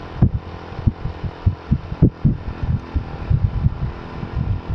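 Wind buffeting the microphone of a moving motorcycle: irregular low thumps several times a second over a faint steady rush, as the bike climbs slowly.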